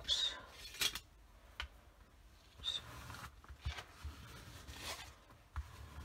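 Faint rustling and rubbing of tissue paper as it is lined up and pressed flat by hand onto a glued background, with a few soft knocks against the table.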